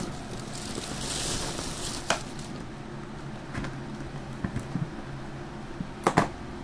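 Rustling and a few sharp clicks from handling takeout food containers, loudest as a pair of clicks near the end, over a steady low hum in the room.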